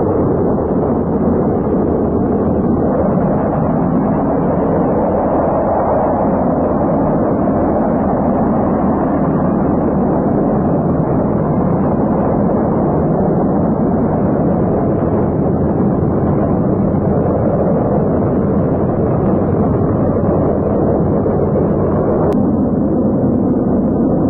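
Saturn rocket engines at liftoff: a loud, steady, deep rushing noise with no letup.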